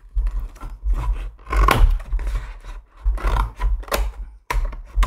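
Plastic wrap on a small cardboard blind box being torn and scraped off by hand, its tear strip having failed: several scratchy, crinkling bursts with handling bumps.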